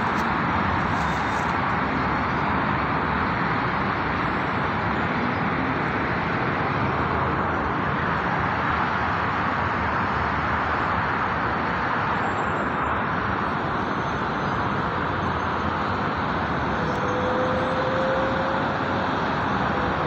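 Steady wash of road noise from heavy traffic on a multi-lane highway interchange far below, an even hum with no single vehicle standing out.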